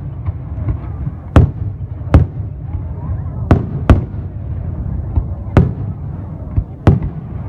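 Aerial fireworks display: about six sharp bangs at irregular intervals over a continuous low rumble of further bursts.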